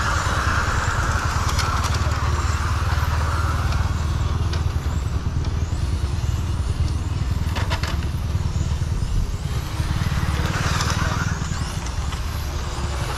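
Radio-controlled cars running on an asphalt track. Their motors and tyres make a rushing hiss over a steady low rumble; the hiss swells at the start and again about ten seconds in, and there are a few sharp clicks near eight seconds.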